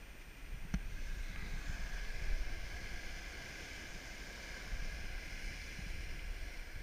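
Sea water washing and splashing around a kayak as a steady hiss that swells about a second in, with low wind rumble on the microphone. One short knock sounds just under a second in.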